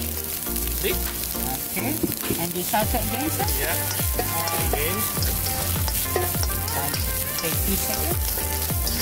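Chopped vegetables and egg sizzling in hot oil in a wok, stirred and turned with a slotted spatula; a steady frying hiss.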